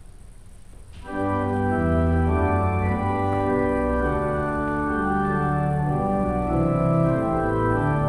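Organ begins playing about a second in: sustained full chords over a bass line, the notes changing every second or so.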